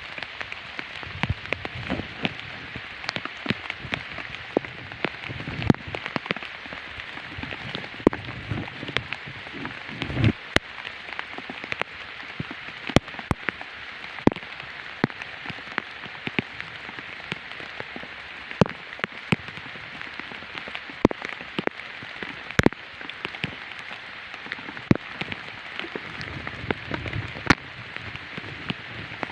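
Rain falling: a steady hiss with frequent, irregular sharp ticks of drops hitting nearby surfaces, and a few soft low thumps of handling.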